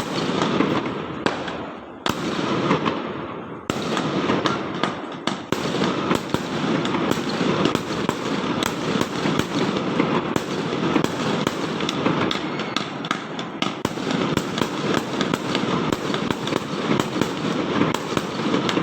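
Fireworks and firecrackers going off in a dense barrage: sharp bangs about 2 s and 3.5 s in, then a continuous crackle of overlapping pops and reports.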